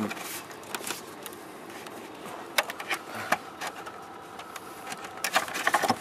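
Hand rummaging in the cavity behind a car's interior trim panel: soft rustling with scattered clicks and taps, more of them near the end.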